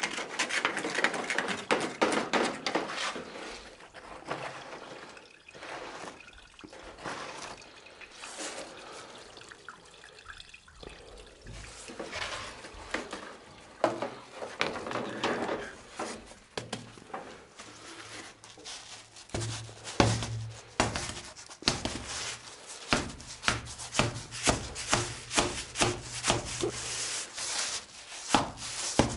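Water dribbling and splashing in a drain pipe, then a hand tool worked back and forth against the pipe, rasping at about two strokes a second over a low steady hum in the last third.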